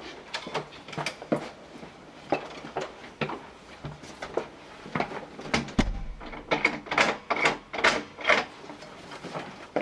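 A front door being opened and handled: a string of clicks and knocks from the handle and latch. There is a dull thump about six seconds in, then a quicker run of clicks.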